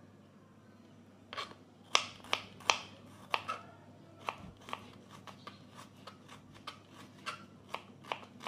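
Kitchen knife slicing shallots on a plastic cutting board: a run of sharp, uneven taps as the blade strikes the board, starting about a second in.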